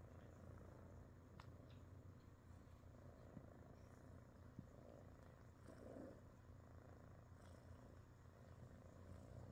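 Faint, steady purring of a British Shorthair kitten, a low continuous rumble that swells a little now and then.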